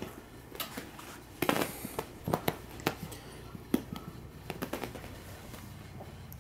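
Irregular light clicks and taps, a few each second with a louder cluster about a second and a half in, from small beagle puppies scampering and playing with toys on a carpeted floor.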